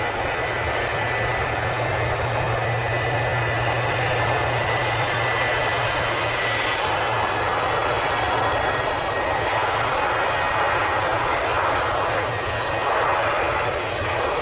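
Boeing 747 jet engines running steadily at low thrust as the jumbo jet taxis, a continuous rush with a thin steady whine and a low rumble underneath.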